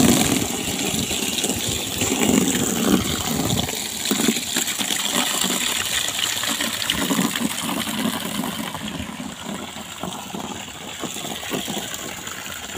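Water gushing steadily from a garden hose into a black plastic basin, filling it. It grows a little quieter over the last few seconds.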